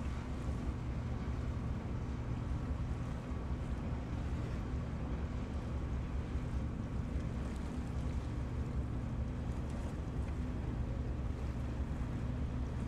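Steady low drone of a river boat's engine, even and unchanging, with a faint higher hum and a wash of wind and water over it.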